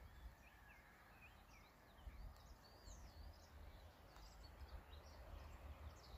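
Faint birdsong: a run of short, quick chirping and warbling notes, over a low uneven rumble.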